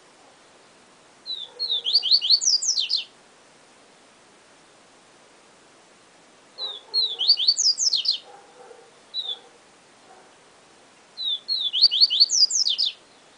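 Papa-capim seedeater (Sporophila) singing the 'siu siu professor' song dialect: three phrases a few seconds apart, each a quick run of high, sharply falling whistled notes.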